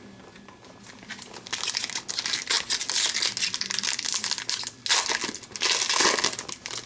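Foil wrapper of a hockey card pack crinkling as it is handled and torn open by hand. It is a dense run of crackles starting about a second and a half in, loudest about five to six seconds in.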